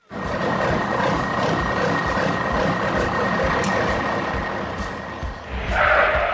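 Large truck engine sound effect, running steadily, with a louder burst near the end.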